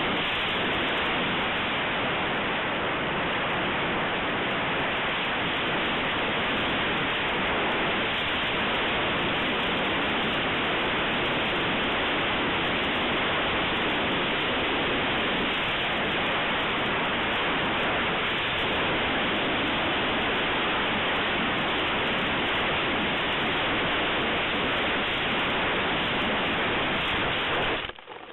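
Steady rushing noise of air streaming over a small onboard camera on a Multiplex Blizzard model plane in flight, with no distinct motor tone heard. It cuts off abruptly near the end.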